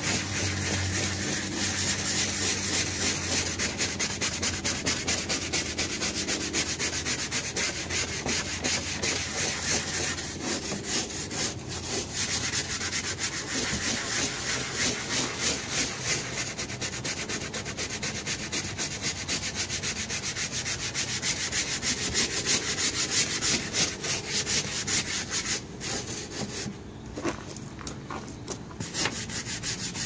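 Hand scrub brush scrubbing back and forth over a vinyl golf cart seat, working cleaner into the stains: rapid, steady rubbing strokes that thin out and stop near the end.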